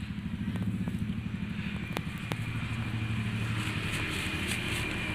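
An engine running steadily with a low, rapid pulsing, with a few sharp clicks over it.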